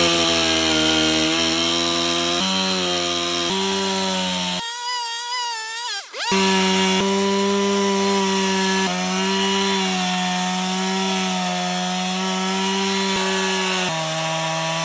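Stihl chainsaw running steadily as its bar cuts through a thick sheet of ice in a water-filled chest freezer. A few seconds in, its steady note briefly drops away and wavers in pitch, then carries on.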